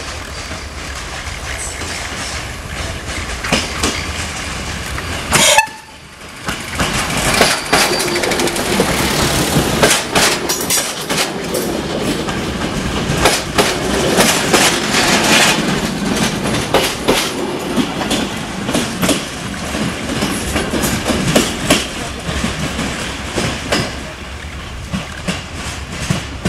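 Ex-DB class 624 diesel multiple unit passing close by at low speed: engine running, with wheels clicking rapidly over rail joints and points. A sharp loud knock comes about five seconds in.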